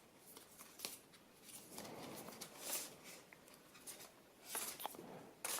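Faint rustling and a few light clicks of packaging and small accessories being handled.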